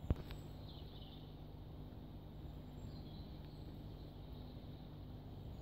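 Quiet outdoor background noise with a steady low hum, a single short click just after the start, and a few faint distant bird chirps.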